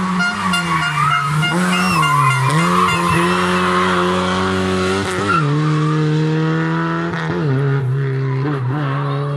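Rally car engine revving hard, its pitch dropping and climbing again about five times as the driver shifts or lifts off through the bends.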